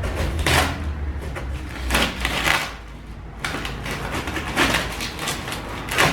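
A bicycle's shipping box and packaging being opened and handled: a string of irregular rustling, scraping noises, the strongest about half a second in, around two seconds in and near the end.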